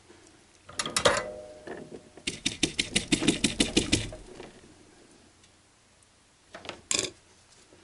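Small tools and parts being handled and set down on a workbench mat: a few knocks, then a rapid run of about ten even clicks, and two more clicks near the end.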